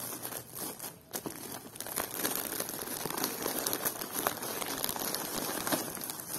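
Plastic shrink-wrap on bundled snack packs crinkling as hands grip and shift them in a cardboard box, with many small crackles, busier after about a second in.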